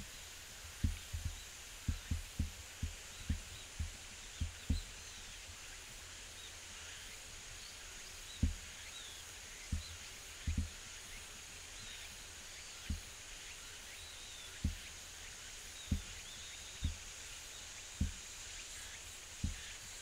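Outdoor summer ambience: a steady high insect drone with faint chirps, broken by about twenty dull low thumps that come thickest in the first five seconds.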